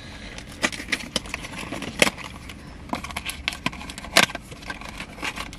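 A small cardboard blind box and its plastic wrapping being picked and pried open by hand: irregular crinkling, scraping and tearing, with a sharp snap about two seconds in and another about four seconds in.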